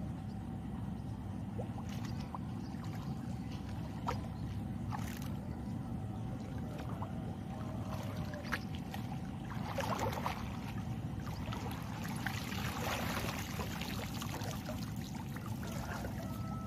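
Water sloshing and splashing as a man wades and lifts a cast net, heavy with fish and mud, out of muddy water. The splashing comes in a short burst partway through and a longer stretch soon after, over a steady low rumble.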